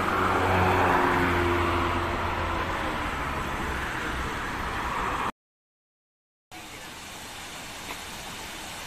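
A motor vehicle passing close on a road: its engine hum is loudest about a second in and slides a little lower as it fades. The sound then cuts out completely for about a second, and a quieter steady rushing noise follows.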